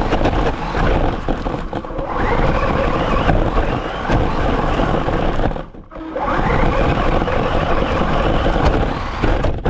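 Electric RC car's motor whining and its tyres churning over grass, heard up close from a camera mounted on the car, with wind on the microphone. The whine rises twice as the car speeds up, with a short drop in between.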